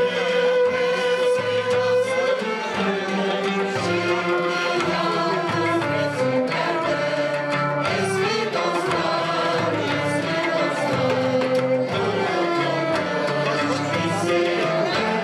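Turkish classical music ensemble of violins, ouds, clarinet and frame drum playing a melody together, with the drum keeping a steady beat.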